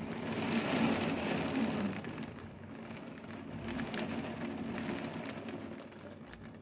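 Heavy rain pouring down and striking the window glass: a dense steady hiss, strongest in the first two seconds and easing a little later, with scattered sharp ticks.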